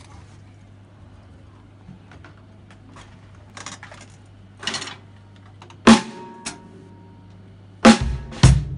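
Acoustic drum kit: a few soft taps, then single loud strikes about six and eight seconds in, the first leaving a ringing tone, as the drum solo begins. A low steady hum sits underneath.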